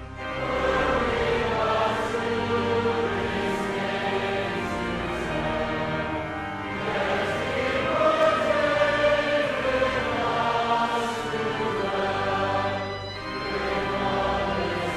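Worship music with a choir singing slow, long-held phrases, with short breaks between phrases about six and a half seconds in and again near the end.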